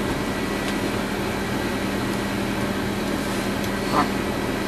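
Steady mechanical hum and hiss of an ambulance running, heard from inside its patient compartment, with one constant low tone.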